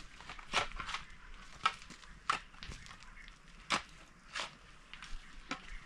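Irregular light crunches and scuffs, about seven spread unevenly over a few seconds, such as steps or movement on dry ground.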